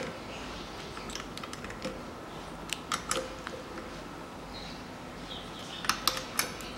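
Ratchet wrench clicking in short runs of a few clicks, about three seconds in and again near the end, while the cylinder-head bolts of a piston air compressor are tightened down.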